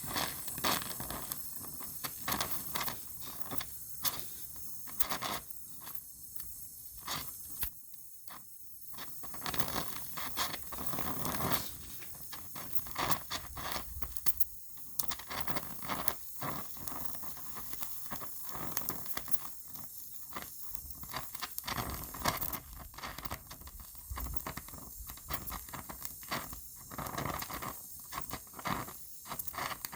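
MIG welder tacking a car sill panel: irregular crackling and spitting in stretches, with short pauses between welds.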